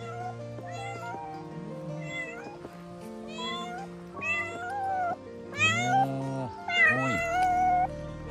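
A cat meowing repeatedly, about six rising-and-falling meows, the loudest and longest near the end. Background music plays underneath.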